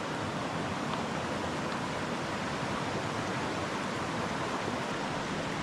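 Steady, even rushing of a river's flowing water.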